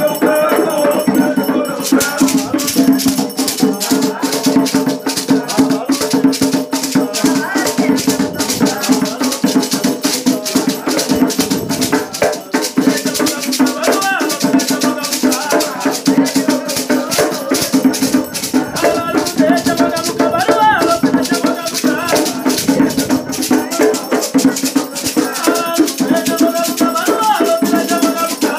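Batuque ritual music: rattles shaken in a fast, steady rhythm with voices singing the chant over them.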